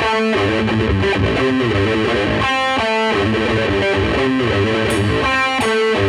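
Background music: a distorted electric guitar playing a repeating riff.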